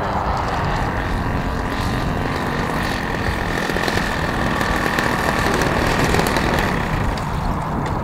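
Radio-controlled model biplane's engine and propeller running steadily as the model rolls along the runway. A faint whine rises slightly in pitch through the middle and fades near the end.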